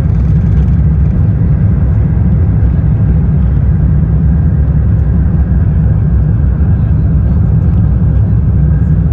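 Loud, steady low rumble inside the passenger cabin of an Airbus A350-1000, from its Rolls-Royce Trent XWB engines and the airframe.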